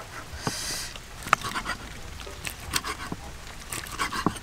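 Cleaver chopping cooked pig lung on a round wooden chopping board: irregular sharp knocks of the blade striking the wood, with lighter taps and scrapes between them.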